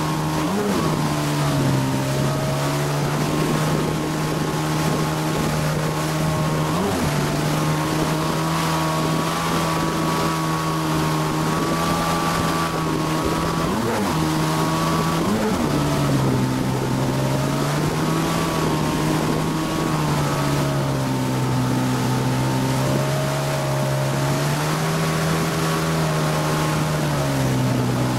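Motorboat engine running under way while towing a tube rider. Its steady hum steps down in pitch and back up again several times. Under it runs a constant rush of churning wake water and wind.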